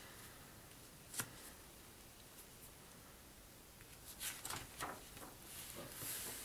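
Faint rustle of paper catalog pages being handled and turned over by hand, with a single light tap about a second in.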